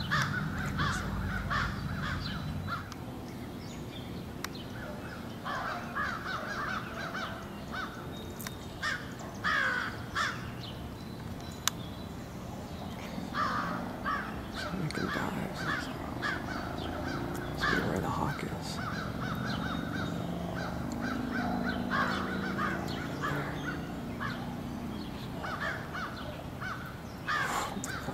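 Crows cawing over and over in bursts of harsh calls. These are mobbing calls, made as they chase and harass a hawk.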